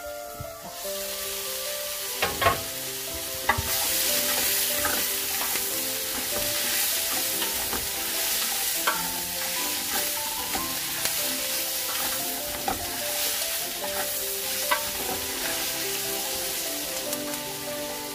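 Sliced onions, carrots and sausage sizzling as they fry in an aluminium pot, stirred by hand with a utensil that now and then knocks against the pot with a short metallic ring.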